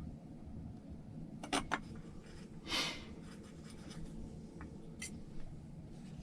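Small parts and tools being handled during assembly: two light clicks about a second and a half in, a short scrape near the middle, and another click near the end.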